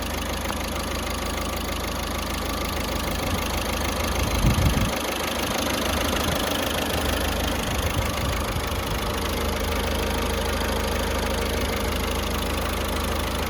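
1.5 L BlueHDi four-cylinder turbodiesel engine idling steadily, with a brief louder patch about four to five seconds in.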